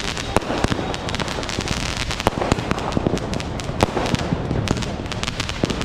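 Many firecrackers bursting all around: a dense, irregular stream of sharp cracks, several a second, over a continuous crackle and rumble of more distant bangs.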